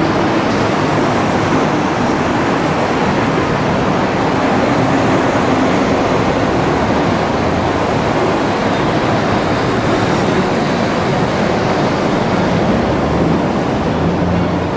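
Loud, steady rumbling noise of a container freight yard, with a low hum underneath that fades in the middle and comes back near the end.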